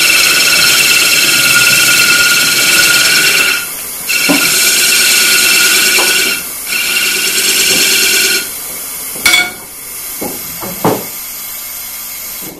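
A turning gouge cutting the bottom of a wooden platter spinning on a wood lathe, a loud scraping with a ringing high tone, in three passes with short breaks. The cut stops about two thirds of the way through, and a few knocks follow.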